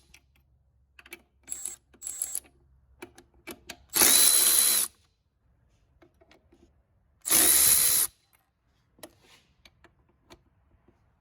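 Milwaukee M12 Fuel 3/8" extended-reach electric ratchet run in two bursts of under a second each, about four seconds in and again near seven seconds, its motor giving a steady whine. Between the runs there are short trigger blips and light clicks of the tool and socket.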